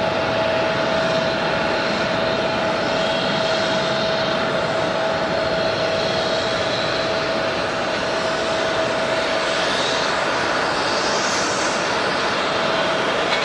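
Airliner jet engines running, a steady rushing noise with a constant whine.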